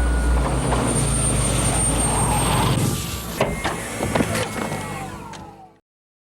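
Rocket engine sound effect: a deep rumble under a loud rushing noise, with a thin high whine that sinks slightly. It thins out with a few sharp crackles and falling tones, then fades out near the end.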